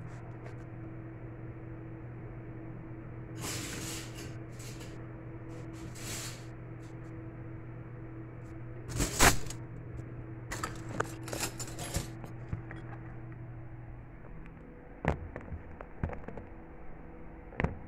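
Spoons and their plastic wrapping handled as they are set into a cutlery case tray: rustles, clicks and knocks, the loudest knock about nine seconds in. A steady hum underneath stops about fourteen seconds in.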